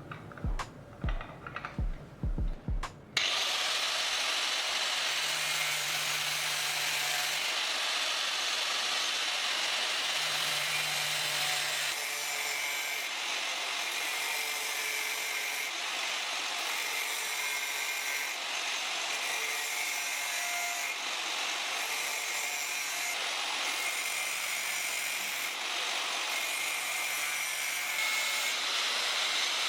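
A few light knocks and clinks, then about three seconds in a power tool starts abruptly and runs steadily under load, cutting or grinding. Its noise swells and eases every couple of seconds as it works the material.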